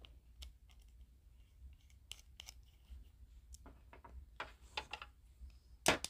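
Light, scattered clicks and taps of a small Torx screwdriver and knife parts as screws are worked out of a Boker Kalashnikov automatic knife's handle. A quicker cluster of louder clicks comes near the end.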